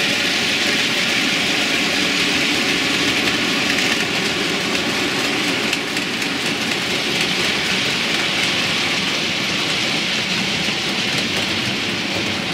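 OO-gauge model trains running around a layout: a steady hiss and whirr of metal wheels on track and small electric motors, including a long train of TTA tank wagons.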